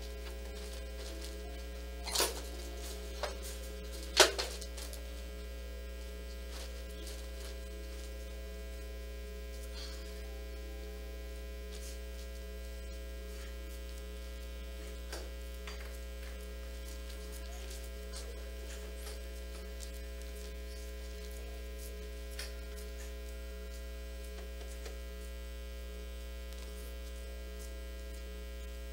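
Steady electrical mains hum on the room's microphone. A few short, sharp sounds cut through it about two, three and four seconds in, the last the loudest.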